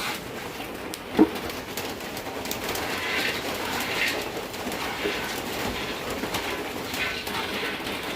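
Steady hiss of food frying in a pan in its own fat, with a dove cooing over it and one short louder sound about a second in.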